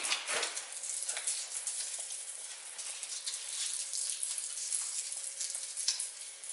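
Crackling and crinkling of a foil filler pouch (Dolphin Glaze fine body filler) as it is handled and its nozzle worked open, a continuous sizzle-like rustle with many small clicks.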